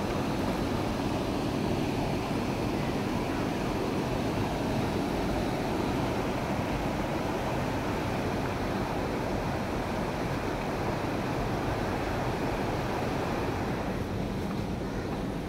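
Steady rushing of a swollen, fast-flowing muddy river, an even roar of water without a break.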